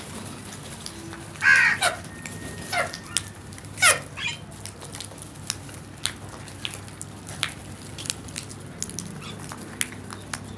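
Crows cawing. Loud harsh caws come about 1.5, 3 and 4 seconds in, followed by fainter calls and short sharp sounds.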